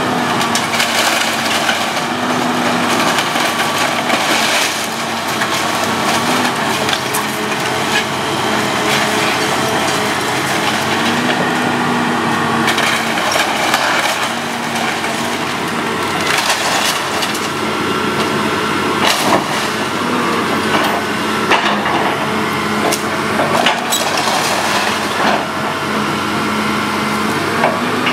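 Hydraulic excavator bucket tearing apart a fire-damaged wood-frame house: timbers, roofing and siding splintering, cracking and crashing down again and again, over the excavator's engine running.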